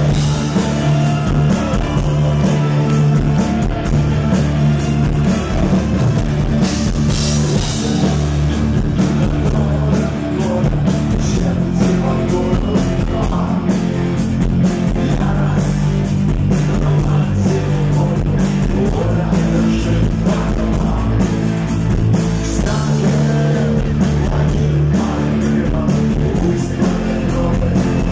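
A live rock band playing loud, with electric guitars, bass and a drum kit, and a male lead vocal singing over them.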